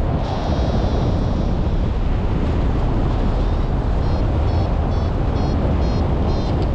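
Airflow buffeting the camera microphone in paraglider flight: a steady, loud rushing wind noise. Over it a paragliding variometer gives short high beeps, about two a second, from about halfway through, its signal of climbing in lift.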